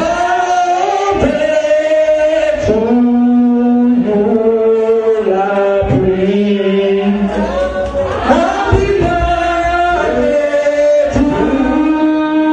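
A man singing long held notes into a handheld microphone, stepping from pitch to pitch, with music underneath.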